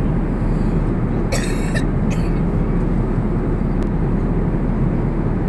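Steady low rush of a jet airliner's cabin noise in flight, engines and airflow heard from inside the cabin. A short hiss cuts in about a second and a half in, with a fainter one just after.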